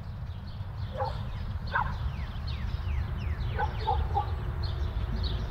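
Wind buffeting the microphone with a steady low rumble, while birds chirp with quick falling notes and a dog gives a few short barks, about a second in, near two seconds, and three together near four seconds.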